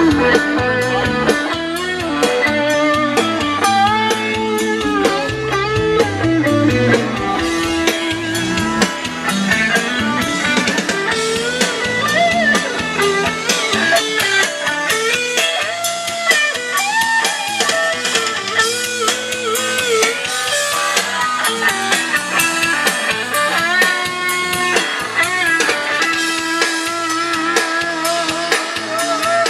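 A guitar-led rock song with drums played on a custom sound-quality car audio system, heard inside the van's cabin; the system has its own tweeters, mids and mid-bass plus separate high and low subwoofer sections.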